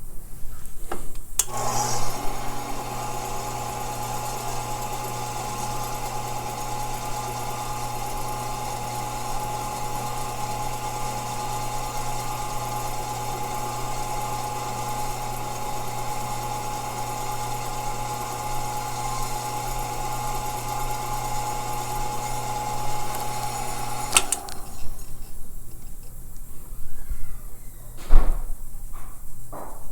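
Faceting machine motor spinning the polishing lap while the peridot's table is polished against it by hand: a steady hum with a higher whine. It starts about a second in and cuts off suddenly near the end, followed by a few light knocks.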